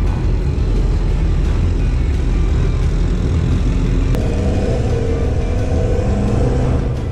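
Car engine running hard with road and wind noise at speed. From about four seconds in, a rising engine note comes through.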